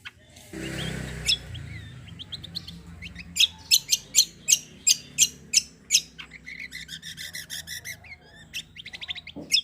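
Kecial kombo (cucak kombo) songbird singing in fast 'tembakan' bursts: a run of loud, sharp, high notes about three a second, followed by a quick rattling trill and a final sharp note near the end. A brief noisy rustle comes about half a second in.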